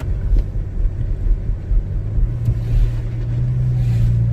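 Car engine and winter-tyre road rumble heard from inside the cabin while driving. A steady low engine hum grows a little stronger about two seconds in.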